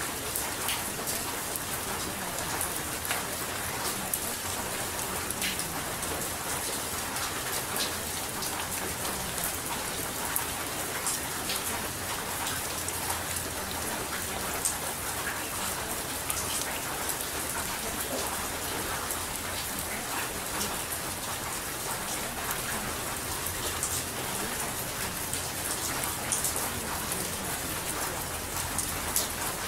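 Steady rain: an even hiss scattered with many small ticks of drops.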